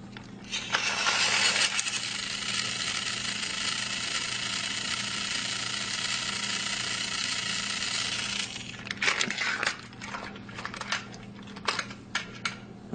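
A dense, steady rattle runs for about eight seconds, stops abruptly, and is followed by scattered clicks and clatters, with a low steady hum underneath throughout.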